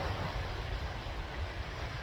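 Sea waves washing steadily, with a low rumble of wind buffeting the microphone.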